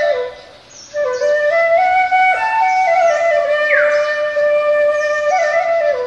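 Background music: a solo flute plays a slow melody of held, stepping notes, pausing briefly at the start and resuming about a second in.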